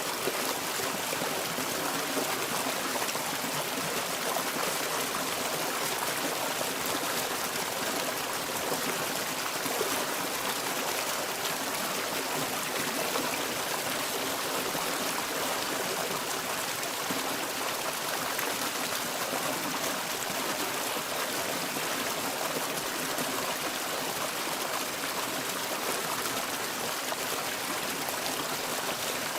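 Turbulent water flowing close up, a steady rushing noise with no breaks.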